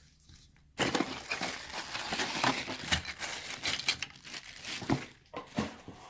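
Plastic packaging crinkling and crackling as it is handled, starting about a second in and lasting about four seconds.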